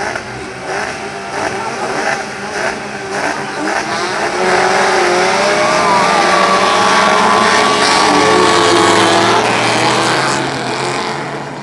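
Engines of a grid of small hatchback dirt-track racing cars revving unevenly while held at the start. About four seconds in they launch together at full throttle, several engine notes rising and overlapping, then fade a little near the end as the pack pulls away.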